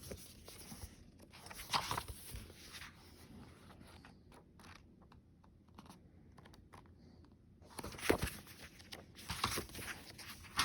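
Paper rustling as the pages of a book are turned: a few short rustles, with a quieter stretch in between.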